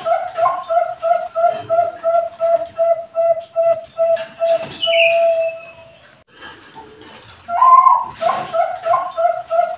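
Zebra dove of the Bangkok contest strain (perkutut bangkok) cooing. A phrase opens on a louder, higher note, runs on in short even coos about three a second, and ends on a longer held coo. After a pause of about two seconds the phrase starts over.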